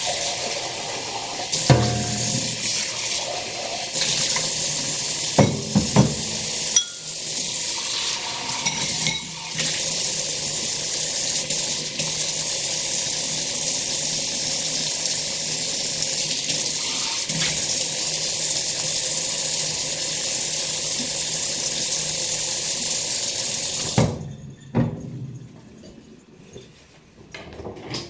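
Kitchen faucet running steadily into the sink while dishes are washed by hand, with a few sharp clatters of dishes in the first ten seconds. The water shuts off abruptly about four seconds before the end, leaving quieter clinks of dishes.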